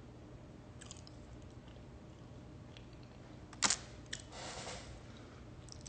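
Quiet eating noises over a low room hum as lemon pepper chicken wings are eaten, with one sharp crunch a little after halfway and a softer one just after.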